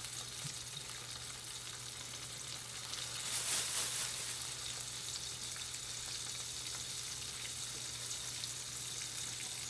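Battered chicken wings deep-frying in a pot of oil: a steady sizzle, swelling briefly about three and a half seconds in, over a low steady hum.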